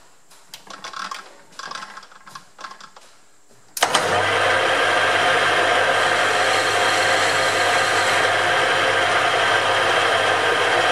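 A few faint clicks, then about four seconds in a metal lathe switches on abruptly and runs steadily, its motor humming and the four-jaw chuck spinning.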